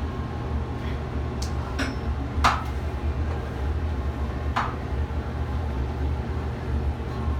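Steady low rumble inside a moving Ferris wheel gondola, with a few sharp clicks and knocks against glass or metal; the loudest knock comes about two and a half seconds in.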